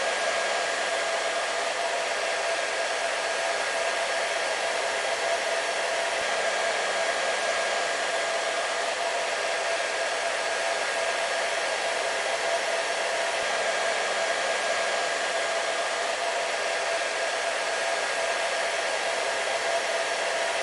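Hair dryer running steadily: an even rush of blown air with a constant motor whine beneath it, unchanging throughout.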